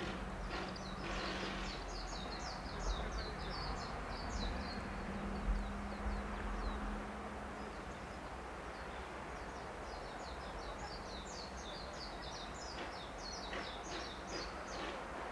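A small songbird singing rapid, high twittering phrases in two long bouts, one near the start and one in the second half, over a steady low outdoor rumble with a faint low hum in the first half.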